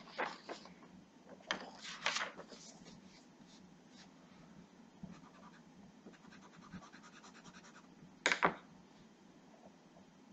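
Paper handled and laid on a wooden table, then a pencil scratching on paper in quick, rapid strokes while drawing letters; a short, louder scrape or knock about eight seconds in.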